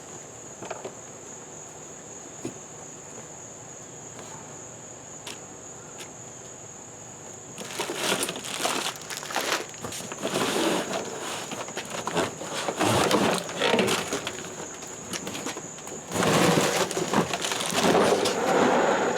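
Crickets chirping steadily as one continuous high trill. From about eight seconds in, loud irregular rustling and knocking handling noise comes over it in bursts.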